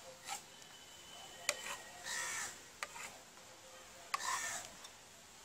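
A few light clinks of a metal spoon against a cup and a steel bowl while water is spooned into rice flour. Two short, harsh animal calls come about two seconds in and just after four seconds in.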